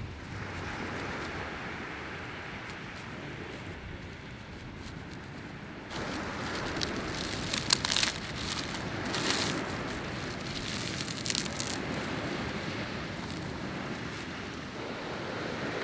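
Dry palm fronds and husks crackling and rustling as they are broken up and packed into a fire pit in the sand. A steady hiss underlies the first few seconds, and the crackling grows louder about six seconds in, with several sharp crunches.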